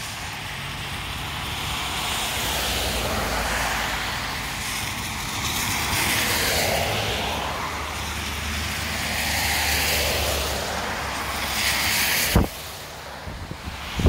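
Gusty wind rushing over the microphone and through the foliage, swelling and easing every few seconds with a low rumble underneath. A sharp knock near the end, and another right at the close.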